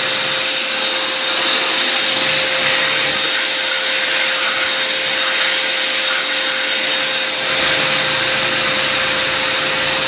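Steady whir of a small electric motor running without a break at an even pitch.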